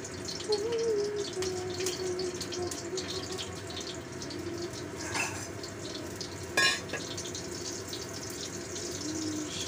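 A few pieces of garlic sizzling in oil in a stainless-steel wok, a steady hiss with fine crackles. A single sharp clatter comes about two-thirds of the way through.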